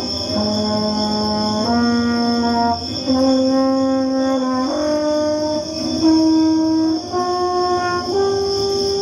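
Solo French horn playing a slow line of held notes, each about a second long and each a step higher than the last, climbing to a long held note near the end.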